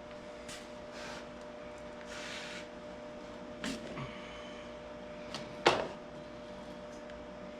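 Scattered light clicks and knocks of work on the tractor, with a sharp knock a little before six seconds and a short hiss after about two seconds, over a steady hum.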